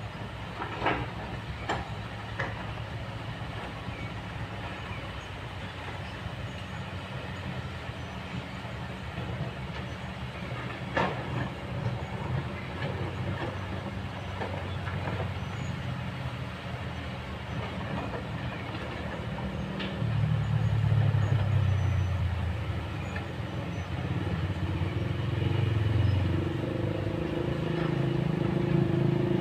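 Kobelco long-reach hydraulic excavator's diesel engine running steadily as the machine works, growing louder about two-thirds through and again near the end. A few sharp knocks stand out over it.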